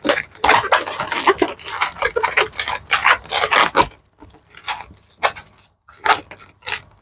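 Long latex twisting balloons squeaking and rubbing against each other as they are twisted and locked into a head-piece frame. The sound is dense for about four seconds, then thins to a few separate squeaks.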